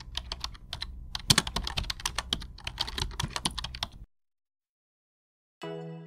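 Rapid, irregular clicking of computer keyboard typing, used as a sound effect for text being typed out, stopping abruptly about four seconds in. After a short silence, a bright chiming musical note sounds near the end and fades.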